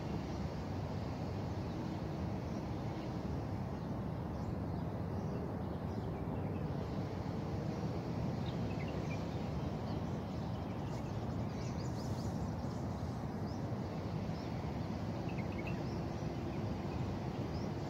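Steady low outdoor background noise, with faint short bird chirps now and then in the second half.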